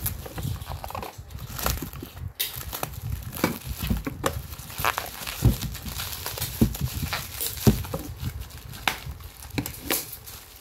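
Clear plastic wrapping crinkling and rustling irregularly as it is handled and unwrapped by hand.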